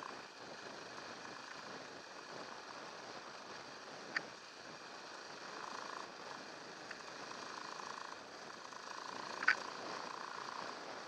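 Off-road motorcycle riding along a bumpy dirt trail: a steady engine-and-rushing noise, with a sharp knock about four seconds in and a louder one near the end.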